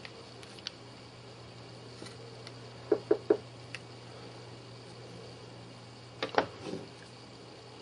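Sharp plastic clicks from a Sony Ericsson W880i phone being handled and turned over in the hand: three quick clicks about three seconds in, then two louder ones and a short rattle just after six seconds, over a steady low hum.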